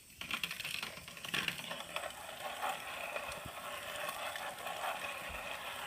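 Small battery toy motor of a motorized Littlest Pet Shop Walkables penguin whirring steadily, with light plastic rattling and clicks as it moves over the plastic playset.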